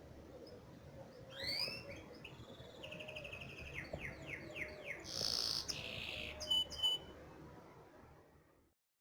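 Finch song of the kind used to tutor caged goldfinches and canaries: a phrase of sweeping whistled notes, a fast trill, a short buzzy passage and two brief high notes, over a faint low hum. The sound cuts off shortly before the end.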